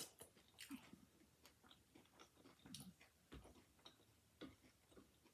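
Faint close-up chewing of a crunchy hard-shell taco: soft, irregular mouth clicks and smacks, several a second, with a soft low bump about three and a half seconds in.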